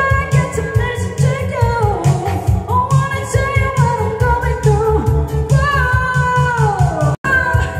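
Women singing a pop song into microphones, amplified through a PA system over a backing track with a strong, steady bass beat. The sound cuts out for an instant a little before the end.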